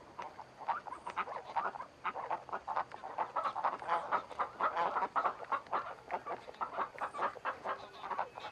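A flock of domestic ducks quacking in rapid, overlapping short calls, with a hen clucking among them.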